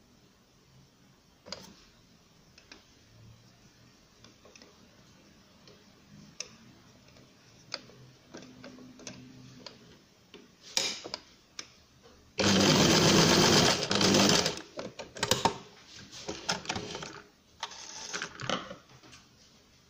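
Electric domestic sewing machine stitching felt. A few faint clicks come first, then the machine runs steadily for about two seconds, followed by several short bursts of stitching near the end.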